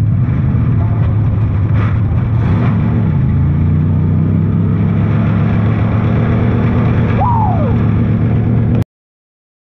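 Race car engine heard from inside the cockpit at racing speed, its note steady and then rising a little about a third of the way through. A brief high squeal falling in pitch comes near the end, and the sound then cuts off suddenly.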